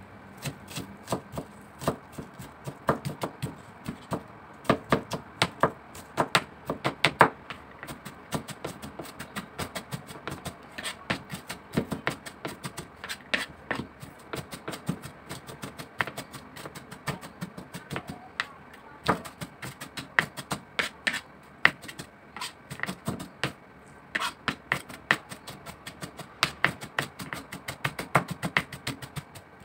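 Kitchen knife finely chopping onion on a plastic cutting board: a steady run of quick, uneven taps of the blade striking the board.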